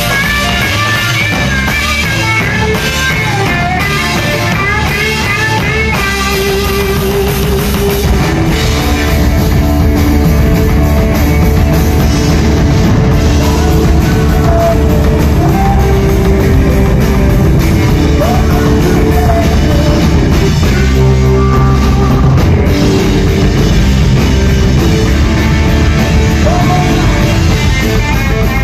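Rock trio playing live and loud: electric guitar over bass guitar and drum kit. The band gets louder about eight seconds in.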